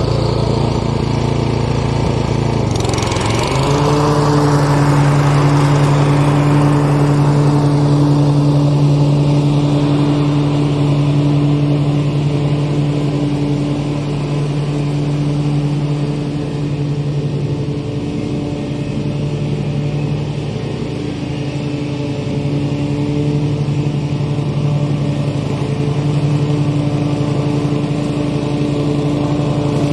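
Lawn mower engine running steadily. Its pitch rises about three seconds in as it speeds up, then holds.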